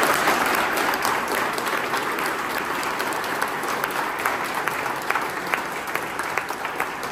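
A roomful of people applauding, dense at first and gradually thinning out, with separate claps standing out in the second half.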